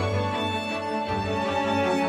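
Slow, calm instrumental relaxation music with long held notes over a low bass line.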